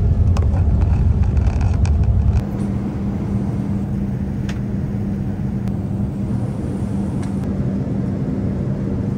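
Airliner cabin noise: a loud low rumble of the jet engines and wheels as the plane rolls along the runway. About two and a half seconds in it cuts to the steadier, quieter drone of the cabin in cruise, with a steady low hum.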